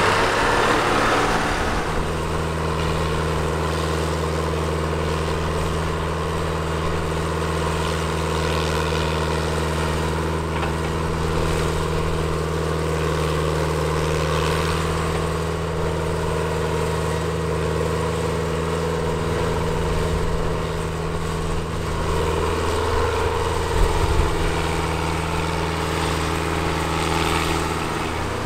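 Engine of a vintage earthmoving machine running at a steady, even speed, with a short knock about 24 seconds in.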